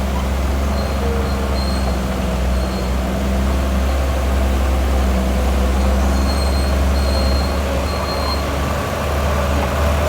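Heavy diesel engine of earthmoving machinery running steadily with a deep low rumble, with a few faint, short high-pitched squeals now and then.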